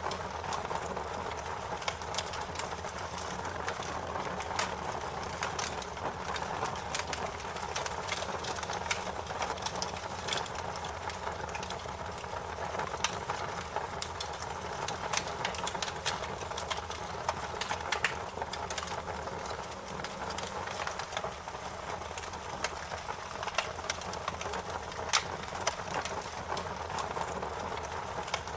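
Fire crackling: a steady hiss with frequent, irregular sharp pops and snaps.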